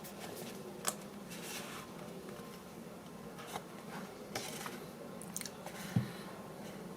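Unboxing an earphone box by hand: faint scattered clicks and taps, with brief rustles of the packaging and a sharper knock near the end.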